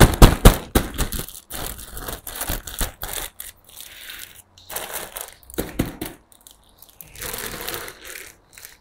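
Clear plastic plant sleeve crinkling and rustling in irregular spells as a large wrapped potted plant is handled and lifted from a cardboard box, with a cluster of loud sharp crackles in the first half second.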